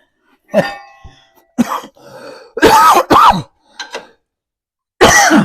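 A man coughing and clearing his throat in a series of short, loud bursts, the strongest a pair about three seconds in and another near the end.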